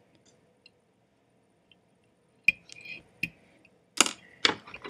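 Small handling clicks from a wire whip-finish tool and hands at a fly-tying vise. Quiet at first, then a sharp click about halfway through and a few light ticks, then two louder short rustling knocks near the end.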